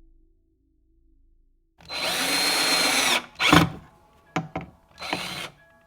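Power drill driving screws to attach drawer handles. It runs once for about a second and a half, then in two shorter bursts, with a few clicks between.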